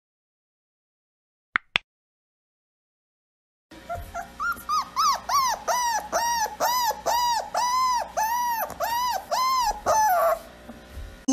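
A recording of a puppy crying, played back: a long run of high, whimpering cries, each rising and falling in pitch, about three a second. It starts about four seconds in and stops near the end. Earlier, about a second and a half in, there are two quick clicks.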